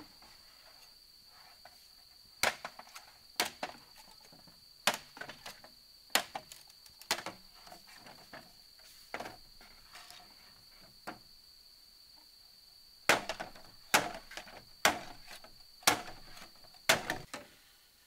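Hollow bamboo poles knocking and clacking against each other as they are handled, in sharp knocks, some in quick pairs or triples and coming about once a second near the end. A steady high insect drone runs beneath.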